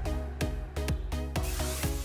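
Background electronic music with a steady beat.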